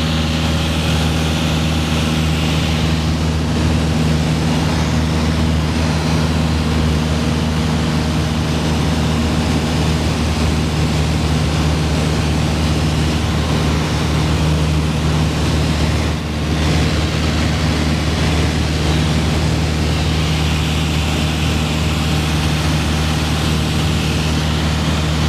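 Piper PA-28-161's four-cylinder Lycoming engine and propeller running steadily in flight, heard inside the cabin with a rush of air. The level dips briefly about 16 seconds in.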